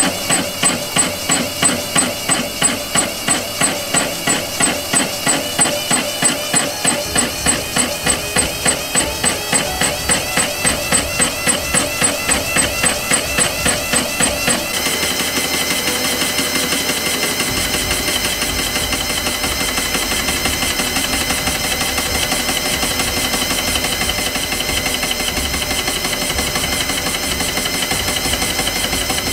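Metal lathe facing a 4140 steel back plate blank, the turning tool cutting across the spinning face. For the first half the cut pulses rhythmically at about three beats a second, then about halfway through it settles into a steady, even cutting noise.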